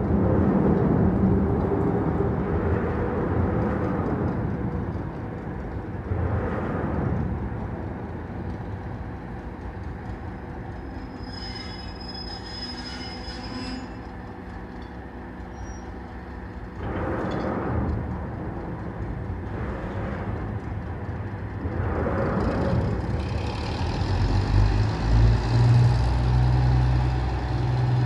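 Arcade & Attica Railroad freight train working the junction: railcars rolling, with a high wheel squeal for a few seconds in the middle. The diesel locomotive's engine grows louder with a low throb near the end.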